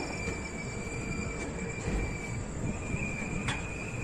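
Passenger train running, heard from inside a sleeper coach: a steady rumble and rattle with a thin, steady high-pitched tone above it.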